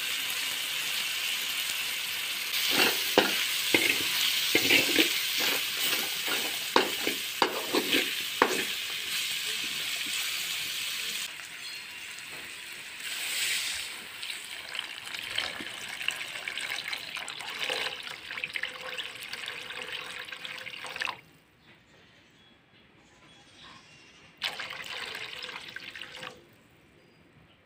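Meat, garlic and ginger sizzling in a metal wok, with a spatula clicking and scraping against the pan for the first several seconds. Coconut cream is then poured in and the sizzle drops to a softer hiss. A short splashing pour comes near the end.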